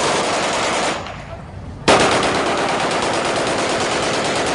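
Celebratory automatic gunfire from rifles and machine guns, many shots in rapid, overlapping bursts. The firing thins out about a second in and comes back abruptly just before two seconds, then keeps on.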